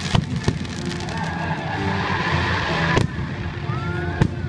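Aerial fireworks bursting: several sharp bangs, two close together near the start, the loudest about three seconds in and another near the end.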